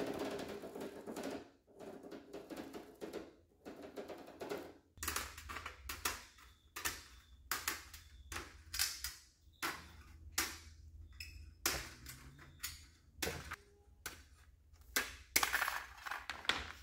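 Tin snips cutting a hexagon-perforated metal mesh grille sheet: a run of short, sharp snips, roughly one every half second to a second, from about five seconds in. Before that, a marker scratching across the mesh.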